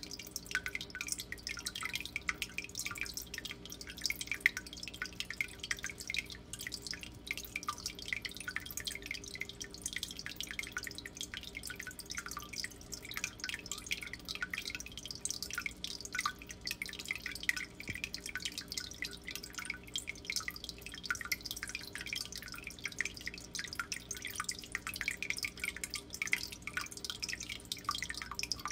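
Turtle tank water trickling and splashing in a constant, irregular patter, like a filter outflow or bubbles breaking the surface, over a steady low hum from the tank's pump.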